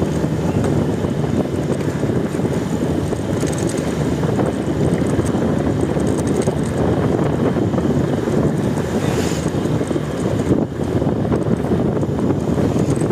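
Steady wind rumble on the microphone while moving along a street, mixed with a dense low din of traffic.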